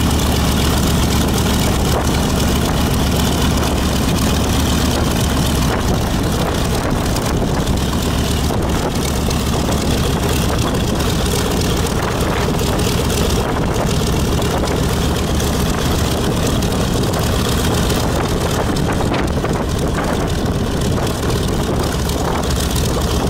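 A B-25 Mitchell bomber's Wright R-2600 radial engine runs steadily during warm-up on the ground, with its propeller turning. The sound is a loud, even drone that holds constant throughout.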